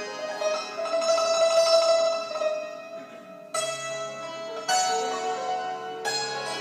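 Persian santoor struck with light hammers in a solo passage: quick repeated strokes with the strings ringing on. The notes fade a little before halfway, then new, louder strikes come in.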